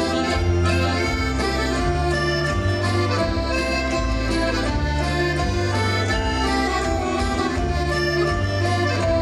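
Accordion playing a Latvian folk dance tune over a steady bass line that changes note about once a second.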